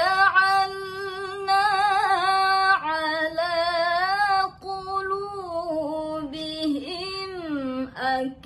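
A woman reciting the Qur'an in melodic tilawah style, holding long, ornamented notes that waver in pitch. She takes a short breath about halfway, and the voice slides slowly downward near the end.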